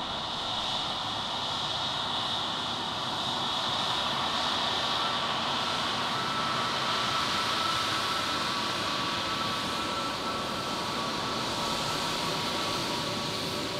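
Jet airliner engines running: a steady rushing noise with a high whine, swelling a little in the middle.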